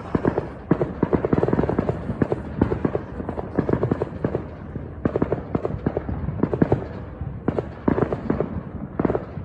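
Fireworks going off: a dense, continuous run of sharp pops and bangs, several a second, with a short lull about seven seconds in.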